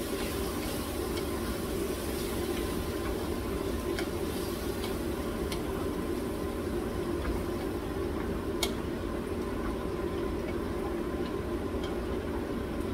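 Flour-thickened stir-fry sauce bubbling in a stainless skillet on a gas burner as a wooden spoon stirs and scrapes through chicken and peanuts, with a few sharp taps of the spoon against the pan.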